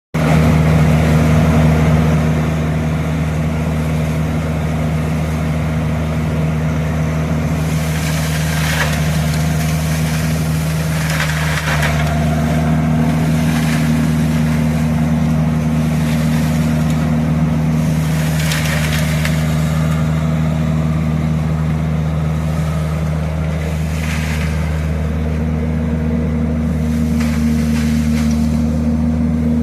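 Leaf vacuum truck running steadily with a constant low hum from its engine and suction fan, broken about five times by short rushing, rattling bursts as leaves are sucked up.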